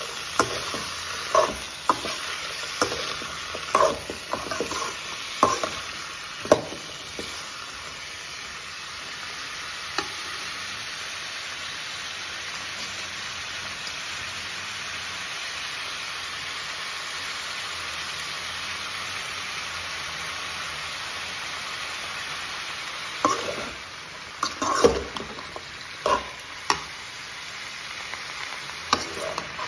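Chopped bottle gourd sizzling in hot oil in a metal kadai, stirred with a steel spoon that knocks and scrapes against the pan for the first several seconds and again near the end. In between there is only the steady sizzle.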